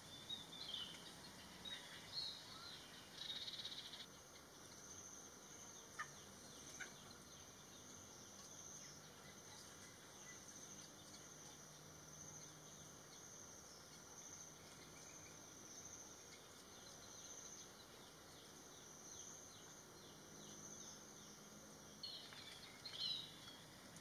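Faint garden ambience: short, high bird chirps in the first few seconds and again near the end, with a steady high insect buzz between them and two faint clicks about six seconds in.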